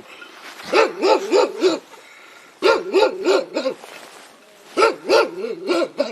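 A dog barking in three quick runs of four or five barks each, with short pauses between the runs.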